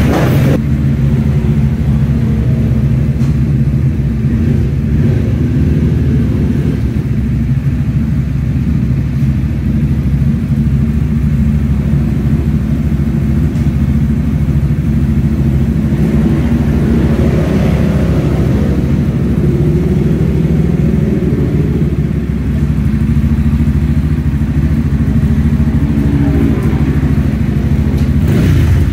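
Single-cylinder Supermono race motorcycle engines, including a Kramer 690, idling steadily while they warm up in a pit garage.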